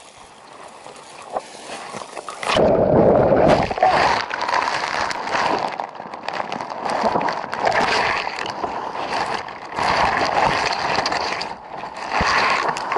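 An angler falling into a stream: a sudden loud splash about two and a half seconds in, then continuous churning, sloshing and gurgling water as he struggles in it.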